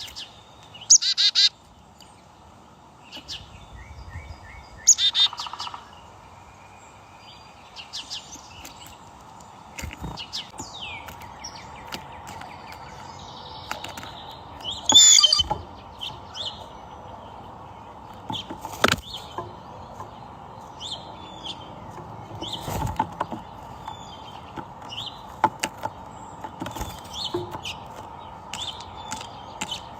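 Double-collared seedeater (coleiro) calling and singing in short, scattered bursts of high chirps over a steady faint hum.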